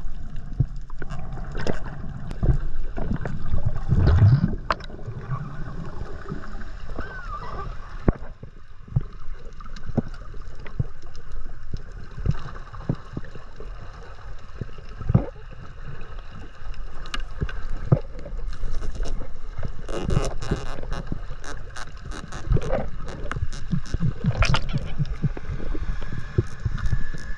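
Muffled underwater sound picked up by a diver's camera: water movement with a low rumble and frequent sharp clicks and knocks.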